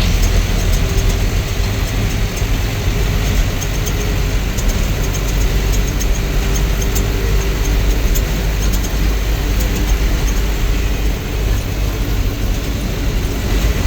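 Bus on the move: steady low engine drone and road rumble, with faint scattered clicks of rattling.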